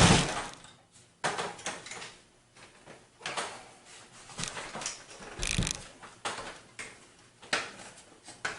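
Scattered clicks and knocks from handling the parts of a PC case's optical drive bays. The loudest knock comes about five and a half seconds in.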